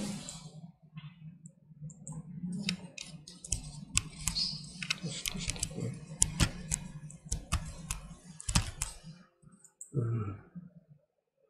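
Computer keyboard and mouse in use: a quick, irregular run of key and button clicks that stops about nine seconds in.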